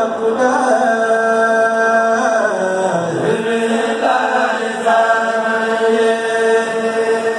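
A Mouride kourel, a group of men chanting a religious poem in unison into microphones: long held notes that step and glide between pitches without a break.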